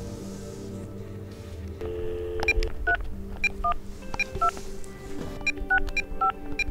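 Touch-tone (DTMF) keypad beeps from a mobile phone as a number is dialled: a quick string of about ten short beeps starting about two and a half seconds in, over soft background music.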